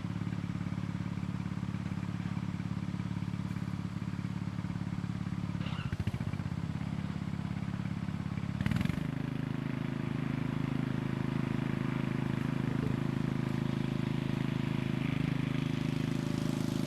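Lawn mower engine running steadily. About six seconds in there is a knock, and another near nine seconds; after the second, the engine note shifts and gets louder.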